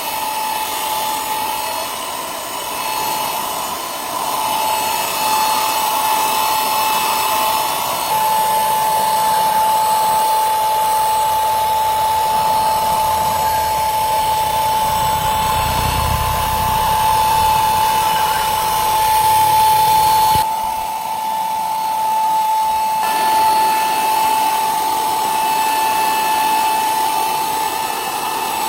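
An electric power tool running steadily with a high, even whine over a hiss. It runs deeper for several seconds past the middle and eases briefly about twenty seconds in.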